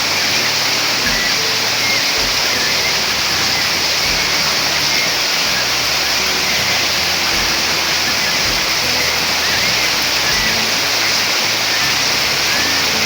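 Steady heavy rain falling, with a bird chirping faintly a few times.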